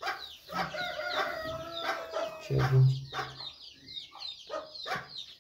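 Domestic chickens clucking in a run of short calls, with one longer drawn-out call in the first half.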